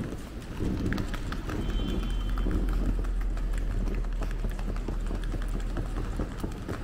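Footsteps of someone walking, a dense run of short irregular taps, with a steady low wind rumble on the microphone.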